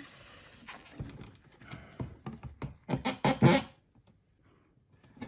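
A Long WP7.2-12 12 V sealed lead-acid battery being handled and lifted out of a UPS battery cartridge: a run of knocks and clatters of its plastic case against the metal tray, loudest about three and a half seconds in.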